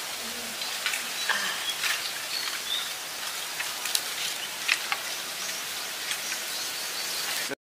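Small open wood fire under a cooking pot, crackling with a steady hiss and scattered sharp snaps as dry sticks and leaves are fed in. The sound cuts off abruptly near the end.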